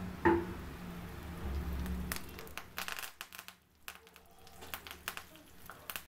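Batter-coated cashews deep-frying in hot oil, with fresh curry leaves crackling and spitting as they hit the oil. A single short knock comes just after the start, and irregular crackles come in patches through the second half.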